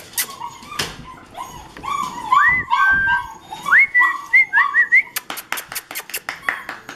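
Young puppies whining and yipping in short, high, arching cries through the middle. Near the end comes a quick run of sharp clicks or claps.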